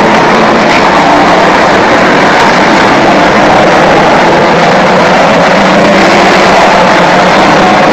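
Pack of saloon stock cars racing round the oval, their engines blending into one loud, steady drone.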